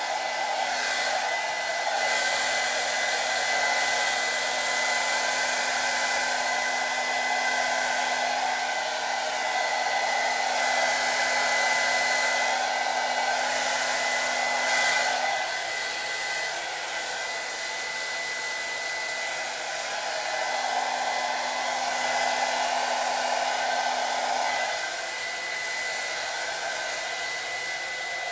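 Nicky Clarke hand-held hair dryer blowing on its cool-shot setting, a steady rush of air with a motor whine. Its hum drops out about halfway through, comes back for a few seconds, then drops out again near the end.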